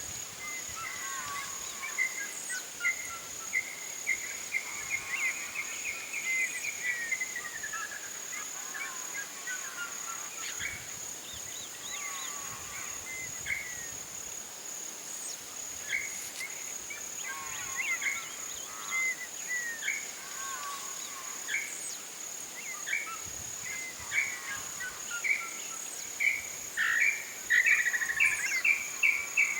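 Dusk chorus of wild birds calling: many chirps and repeated call phrases, some sliding down in pitch, over a steady high insect drone. The calls grow loudest near the end.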